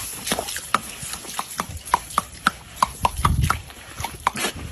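Dog snapping its jaws at a spray of water from a garden hose: quick irregular clicks, about four a second, over the steady hiss of the spray.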